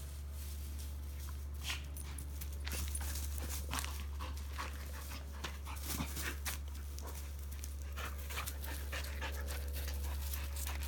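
Dog panting in short breaths, over a steady low hum.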